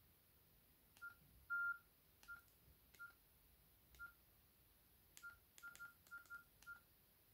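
Nokia 6700 Slide keypad tones: eleven short single-pitch beeps, each with a faint key click, as the navigation keys are pressed. The second beep, about one and a half seconds in, is longer and the loudest, and the last six come in a quick run near the end.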